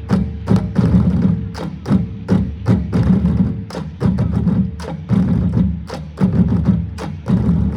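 Manipuri drums played in a fast, dense rhythm: sharp, cracking strokes several times a second over deep, booming drum tones.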